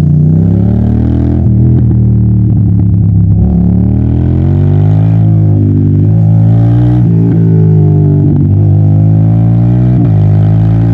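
Yamaha TDM900's parallel-twin engine running hard under way. The revs climb and then drop sharply several times as the quickshifter changes gear.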